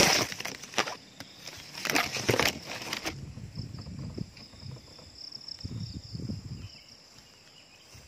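Mango leaves and twigs scraping and crackling against a pole-mounted camera as it is pulled out of the tree, with several loud brushes in the first three seconds. After that a steady high-pitched hum continues, with a few low rumbles from handling of the bamboo pole.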